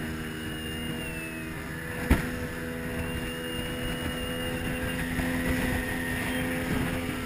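Boat motor running steadily as an open fiberglass fishing boat crosses surf, with water and wind noise. A single sharp knock comes about two seconds in, and the engine note is a little higher after it.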